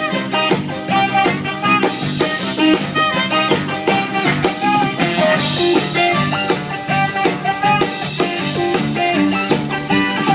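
Live band playing during a sound check: guitar and drum kit over a steady beat, with the drums hitting at regular intervals.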